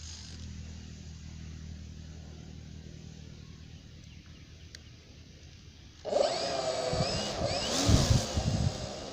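RC model Cessna 182's electric motor: a faint steady hum, then about six seconds in the motor's whine starts suddenly and wavers up and down in pitch as the throttle is worked, with low thumps near the end.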